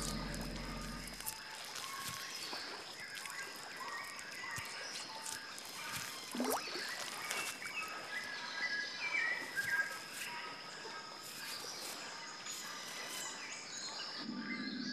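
Tropical wetland forest ambience: many small birds chirping and whistling in short calls over a steady high-pitched tone. Low background music fades out in the first second or so and comes back near the end.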